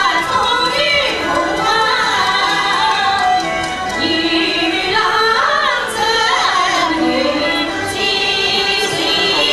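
Women singing a Yue (Shaoxing) opera melody with wavering, ornamented sung lines over instrumental accompaniment.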